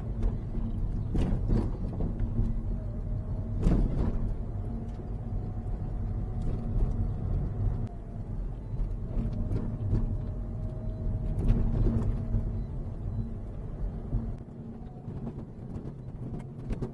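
Japanese car driving, with a steady road and tyre rumble and a few sharp knocks over small bumps. The knocks are the rear bumper rattling, because its clips and clip holes are worn smooth.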